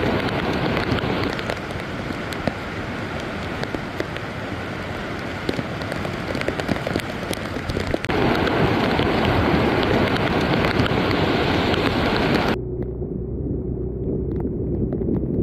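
Heavy typhoon rain and a swollen, muddy river in flood rushing, a dense steady wash of water noise with scattered drop clicks. About three-quarters of the way through it cuts to a duller, muffled wash of floodwater running down a lane.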